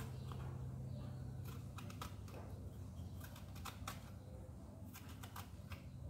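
Irregular soft clicks and scrapes of a peeler's tip gouging the seeds out of a peeled pointed gourd, over a steady low hum.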